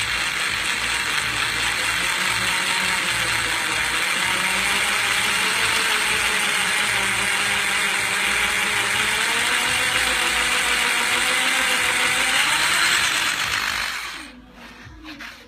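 Power drill with a cobalt bit boring through a steel brake disc, lubricated with metal-cutting paste: a steady grinding drill noise with a whine that wavers in pitch. It stops about 14 seconds in.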